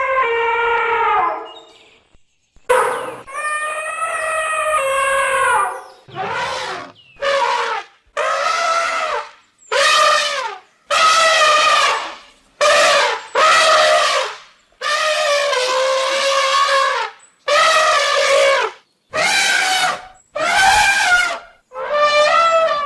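African savanna elephant trumpeting: a series of about a dozen loud, brassy trumpet calls, each one to two seconds long, with short silent gaps between them.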